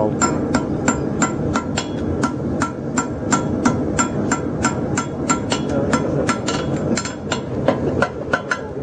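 Farrier's hand hammer striking a red-hot horseshoe on a steel anvil, about three blows a second, each with a bright metallic ring. This is the second heat of forging a bar shoe, with the weld being worked.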